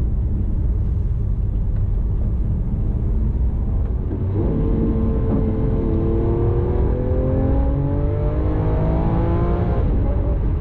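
Lamborghini Aventador S's V12 engine heard from inside the cabin: a steady low drone at first, then from about four seconds in the revs climb steadily as the car accelerates. Near the end the pitch drops at an upshift.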